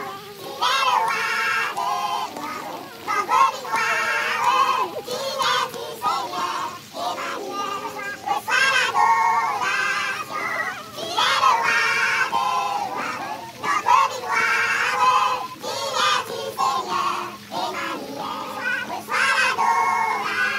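High voices singing in wavering phrases of a second or two each.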